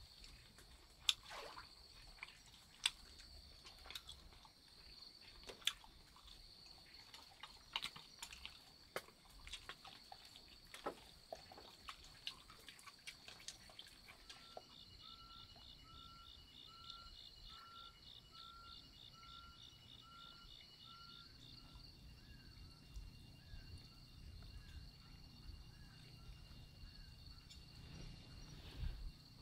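Faint, scattered sharp clicks of chopsticks against a wooden bowl and a dog picking rice off a bamboo floor, over a steady high drone of forest insects. About halfway through, a rhythmic series of short chirping calls begins, about two a second, fading near the end.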